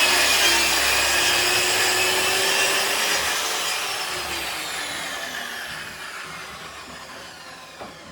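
A power saw winding down after being switched off: its high whine slowly falls in pitch and fades over several seconds. There is a faint knock near the end.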